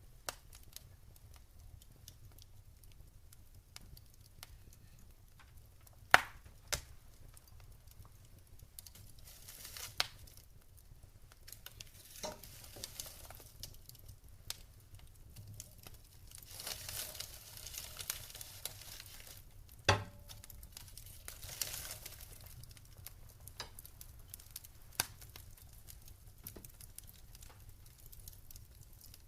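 Wood fire burning in a fireplace, crackling with scattered sharp pops, two of them much louder than the rest, and a few spells of soft hissing.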